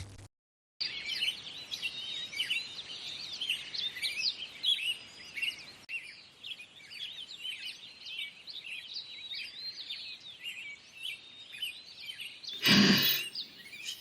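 Morning birdsong ambience: many small birds chirping and tweeting in quick overlapping calls, with a brief loud rushing noise near the end.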